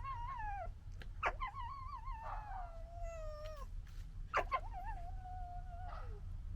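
Young red foxes whining: long, high, wavering cries. One ends about half a second in, and two more begin with a sharp upward yelp and then hold a slowly falling tone.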